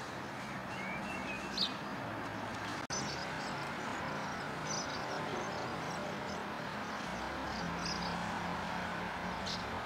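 House martins giving a few short, high chirps over a steady background rumble with a low hum. The clearest chirp comes about a second and a half in. The sound drops out for an instant near three seconds.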